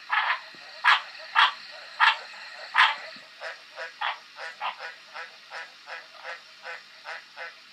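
Australian green tree frog (White's tree frog) calling: five loud croaks spaced about half a second to a second apart, then a quicker run of quieter croaks, about three a second.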